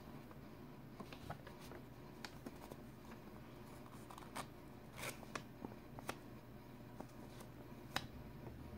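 Paper pages of a small folded zine being turned and flexed by hand: scattered soft rustles and sharp little clicks, the sharpest ones in the second half, over a faint low hum.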